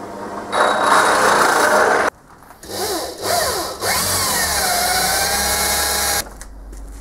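Power drill boring into a cast metal faceplate in two runs. The first cuts off abruptly about two seconds in. The second winds up and down in pitch, then settles to a steady run with the bit cutting, and stops suddenly near the end.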